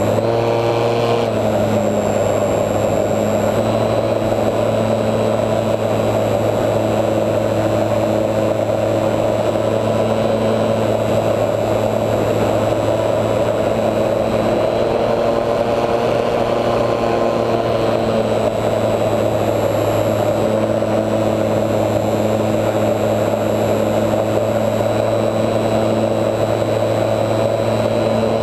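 A HobbyZone Super Cub RC plane's electric motor and propeller running steadily in flight, heard up close from a camera on the plane, with air rushing past. The pitch shifts slightly a couple of times.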